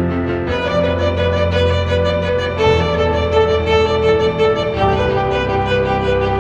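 Slow instrumental background music: a held, bowed-sounding melody that changes note every second or two over a low sustained bass.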